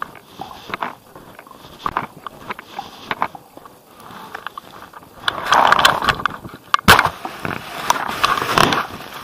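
Handling noise from a covered recording device: scattered clicks at first, then a louder scratchy rubbing in the second half, broken by one sharp knock.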